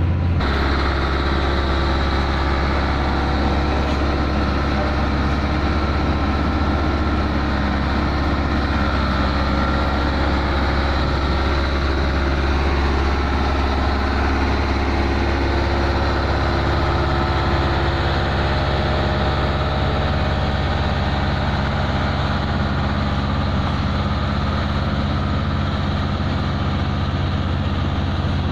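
Heavy diesel engine of road-paving machinery running steadily, a constant low drone with no change in pitch.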